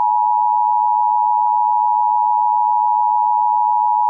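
Emergency Alert System attention signal: two steady tones sounding together as one unbroken, harsh drone, announcing an emergency alert.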